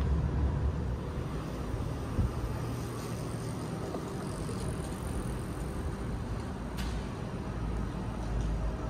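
Steady low rumble of city traffic and background noise, with a short knock about two seconds in.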